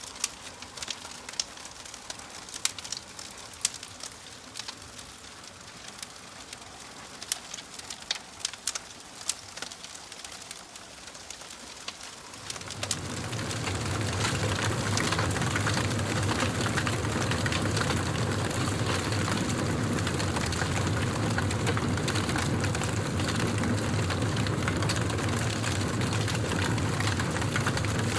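Wood fire crackling, with sharp separate pops and snaps over a faint hiss. About thirteen seconds in, a much louder steady rushing noise with a low hum swells in, and dense crackling continues within it.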